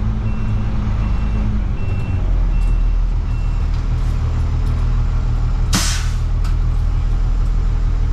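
A truck engine running steadily at low speed. A short high beep sounds about five times, under a second apart, over the first few seconds. About six seconds in a sharp burst of air-brake hiss is the loudest sound.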